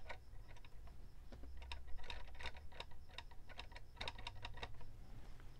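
Faint, irregular light clicks and taps of a plastic pushrod, its clevis and a marker pen being handled against the rudder control horn while the rod is marked for length.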